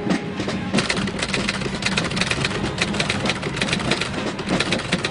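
Marching band playing: fast, dense drum strokes over a held low brass note.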